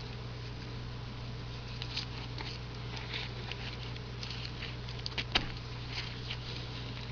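Faint rustling and small clicks of mesh fruit netting and ribbon being handled and tied around a ball of bird seed and shortening, over a steady low electrical hum. One sharper click comes about five seconds in.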